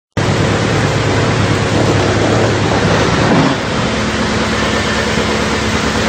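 Industrial drum wood chipper running, a loud, dense mechanical noise with a low hum that starts abruptly. About halfway through it eases slightly and a steadier hum comes in.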